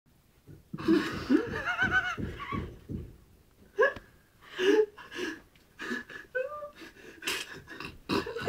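A person laughing in short, breathy bursts, close to the microphone, with a few stray vocal sounds in between.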